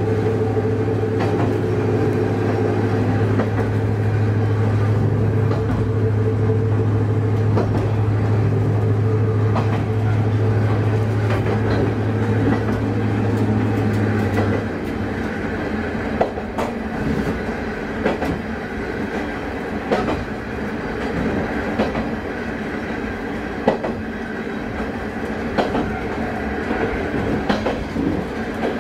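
Diesel railcar heard from the driver's cab, its engine running with a steady hum under power until about halfway through, when the engine note cuts away as power is shut off. The railcar then coasts with a running rumble and irregular sharp clicks of the wheels over rail joints.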